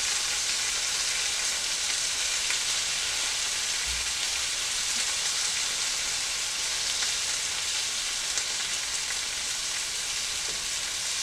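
Flour-coated beef tips searing in hot oil and butter in a skillet: a steady, dense sizzle, with light clicks as the pieces are turned over.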